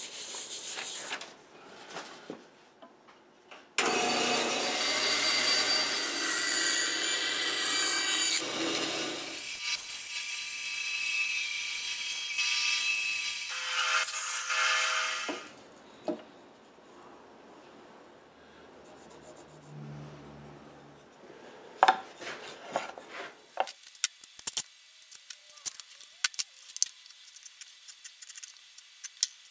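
Band saw starting up and cutting for about twelve seconds, then stopping. Afterwards come light, scattered clicks and scrapes of a knife trimming a small piece on a wooden board.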